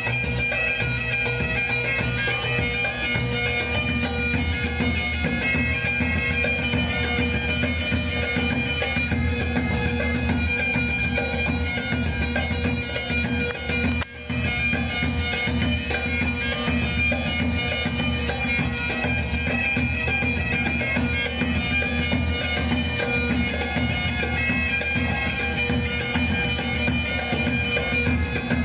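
Bagpipe music playing a hornpipe for highland dancing: steady drones under a quick chanter melody. The music dips briefly about fourteen seconds in.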